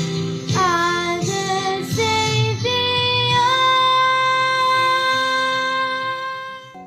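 A child's voice singing a song over backing music: a few short sung notes, then one long held note that fades out near the end.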